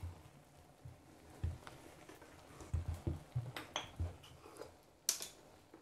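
Wooden spatula knocking and scraping against a metal pot while cooked rice is turned over, in soft, irregular taps and scrapes.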